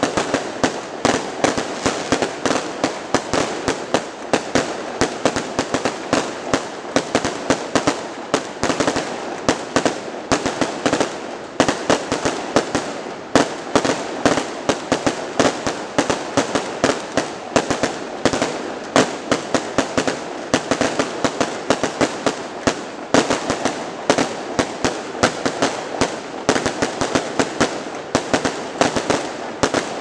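Fireworks display: a dense, continuous barrage of bangs and crackles, several every second without a break.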